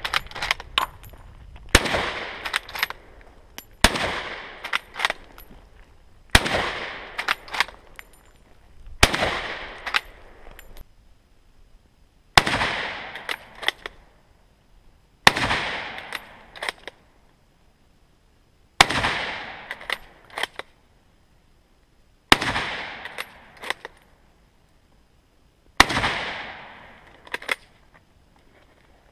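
A 1941 K98k Mauser bolt-action rifle firing 8mm Mauser, nine shots spaced about three seconds apart. Each shot has a long echo rolling away behind it and a few sharp clicks as the bolt is cycled for the next round.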